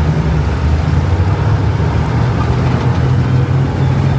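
Heavy truck engine running steadily at an even speed while driving, with a constant rush of road and wind noise.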